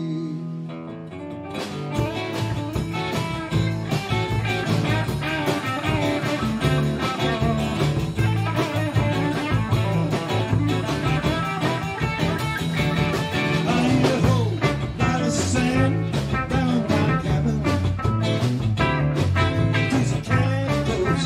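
Live band playing a blues-rock instrumental passage on archtop guitar, electric bass, drum kit and electric lead guitar. A held guitar chord opens, and the full band with drums comes in about a second and a half in.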